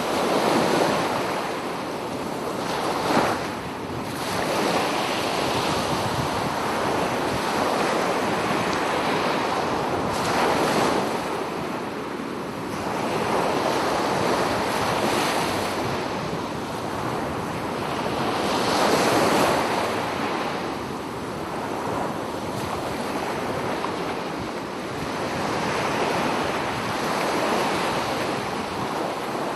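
Ocean waves breaking and washing up on a beach, the surf swelling and falling back every few seconds, with wind across the microphone.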